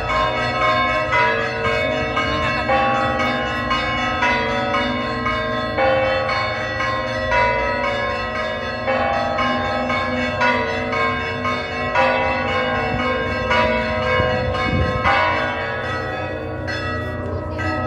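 Church bells ringing in a continuous peal: several bells overlapping, with fresh strikes about every second and a half.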